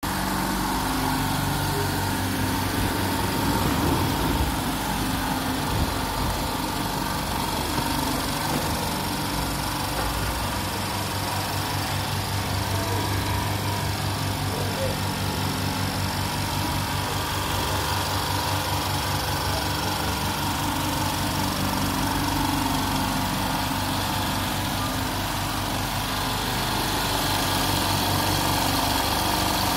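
200-litre, 4 hp silent oil-free air compressor running, its electric pump motors giving a low, steady hum.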